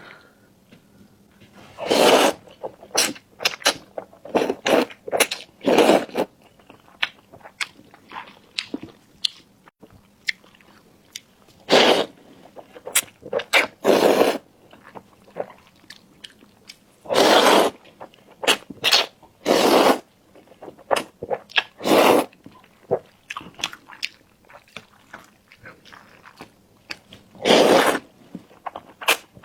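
Close-miked eating sounds: irregular chewing, biting and wet mouth noises, with a few louder half-second bursts every couple of seconds.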